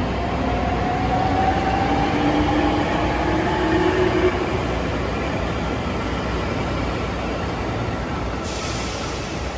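An electric train running, with a whine from its motors that rises slowly in pitch over the first four seconds, over a steady rumble. A short hiss comes near the end.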